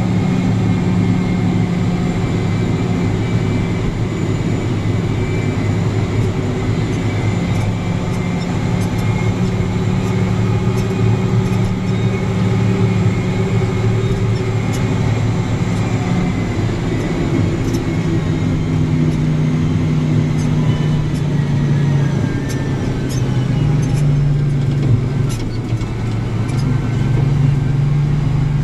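Heavy diesel mining machinery running with a loud, steady engine drone. From about the middle on, the engine speed steps up and down a few times.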